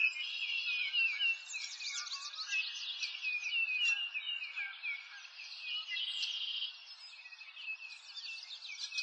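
Many small birds chirping at once: a dense chorus of quick, high chirps overlapping, with a short buzzy trill about six seconds in.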